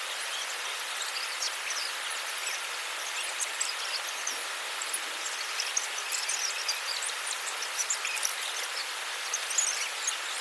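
Steady outdoor nature ambience: an even hiss with many short high chirps and ticks scattered through it.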